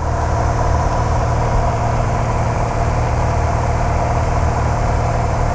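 Steady drone of a light airplane's engine and propeller in cruise flight, heard inside the cabin. It holds even and unbroken throughout.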